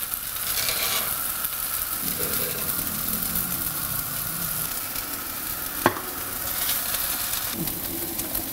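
Breaded vegetable nuggets sizzling steadily in a hot non-stick frying pan greased with canola spray oil, a wooden spatula moving them about. A single sharp knock about six seconds in.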